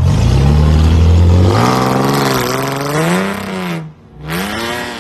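Car engine revving hard, its pitch climbing and falling several times, with a brief sharp drop-out about four seconds in.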